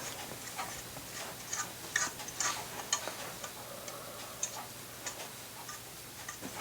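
Light, sharp clicks and ticks at uneven intervals, thickest in the middle, over a faint steady hum.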